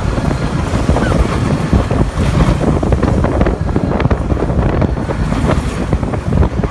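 Loud, rumbling wind noise buffeting the microphone, with scattered knocks.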